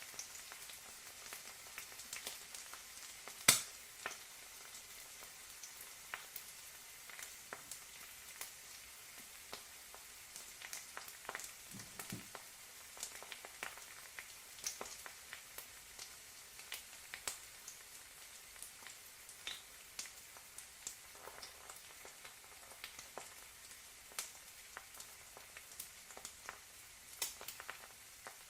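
Egg frying: a quiet, steady sizzle with frequent sharp crackles and pops, one louder pop about three and a half seconds in.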